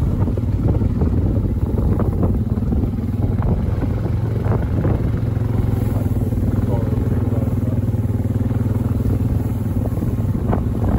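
Quad (ATV) engine running steadily while riding, with occasional knocks and rattles over the rough trail.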